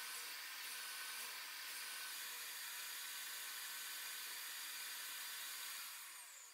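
Table saw running steadily as a board is fed through the blade on a corner-cutting sled. Near the end the sound falls away with a dropping pitch, as the blade winds down.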